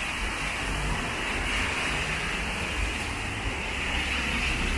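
Steady hiss of rain and car tyres on a wet city avenue, with a low traffic rumble underneath.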